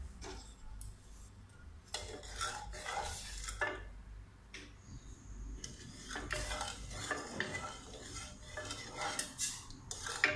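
Wooden spatula stirring sugar, water and food colour in a small steel saucepan, scraping and clinking against the pan in two spells with a short pause between, as the sugar is dissolved for a syrup.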